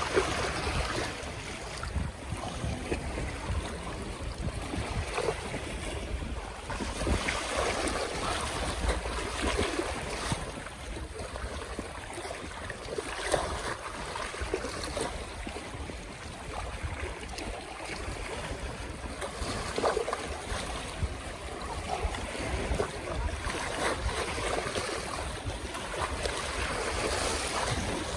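Small waves of the Öresund strait lapping and splashing irregularly, with wind rumbling on the microphone.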